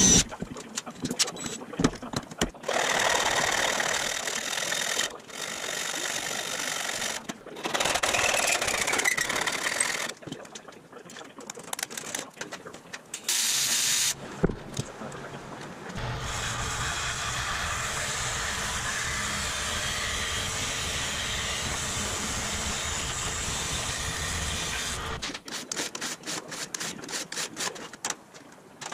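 A cordless drill whines at the start as it drills out rivets in aluminum sheet, followed by several seconds of irregular shop-tool noise. A TIG welding arc on aluminum then buzzes steadily for about nine seconds. Near the end, tin snips clip the aluminum sheet in quick, sharp cuts.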